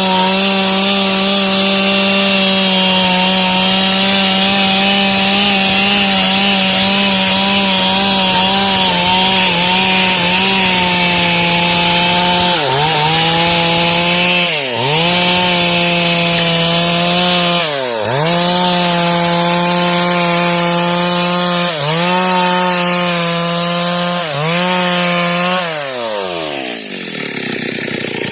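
Stihl MS 382 two-stroke chainsaw running at full throttle, its chain cutting through dry wood. About halfway through the engine speed starts dipping briefly, five times, then it drops almost to idle near the end and revs back up.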